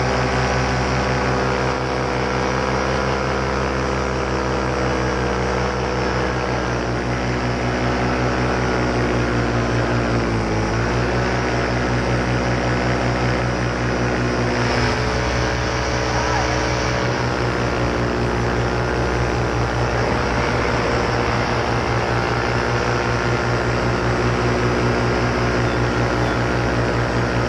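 Paramotor engine and propeller running steadily in flight, its pitch dipping briefly about ten seconds in as the throttle is eased and opened again. About halfway through the sound turns rougher and less even.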